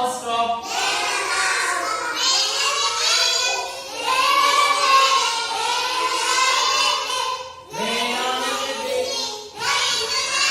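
A group of children singing a rhyme together in chorus, in a few long sung phrases with short breaks between them.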